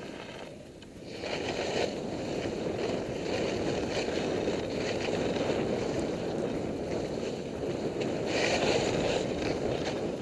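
Skis scraping and hissing over hard-packed snow on a steep descent, mixed with wind rushing over the microphone. It grows louder about a second in and keeps surging unevenly.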